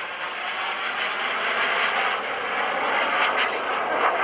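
FLS Microjet, a tiny single-engine jet, flying past on a photo pass: a steady rushing jet noise.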